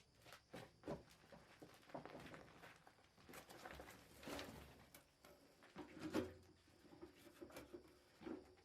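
Faint, irregular light knocks and clicks with some scraping between them, the loudest knock about six seconds in.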